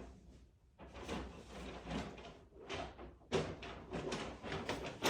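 Rustling and knocking of things being handled, with a sharper knock about three seconds in and another near the end.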